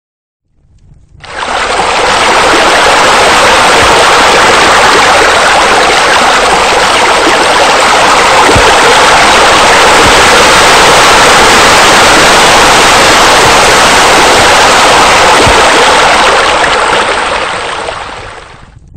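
Loud, steady rush of cascading water from a pool waterfall feature. It fades in about a second in and fades out near the end.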